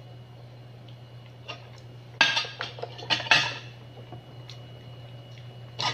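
Metal spoon clinking and scraping against a plate in a quick cluster of sharp clatters starting about two seconds in, with another brief clink near the end.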